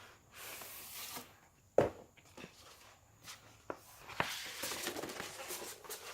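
Posters and their packaging being handled: rustling, with a sharp click about two seconds in and several lighter clicks and taps after it.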